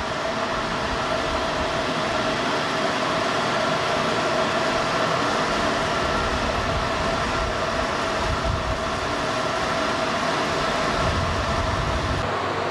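Diesel locomotive running steadily at idle: a constant engine hum with a steady high whine over a wavering low rumble.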